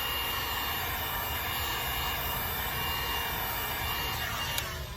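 Electric heat gun blowing steadily with a thin high whine, heating a vinyl decal to activate its adhesive. It is switched off with a click near the end and the noise drops away.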